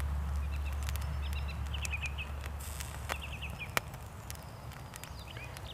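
Low wind rumble on the microphone that eases off about halfway, with small birds chirping in short runs and a few sharp crackles from a burning fat-soaked tinder-fungus wick, the loudest a little before four seconds in.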